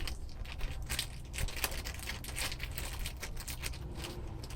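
Hands handling the doorbell's small mounting screws and hardware: a quick, uneven run of light clicks and rattles.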